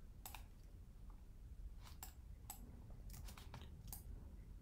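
Faint, scattered clicks of a computer keyboard and mouse, about half a dozen separate clicks over a low, steady room hum.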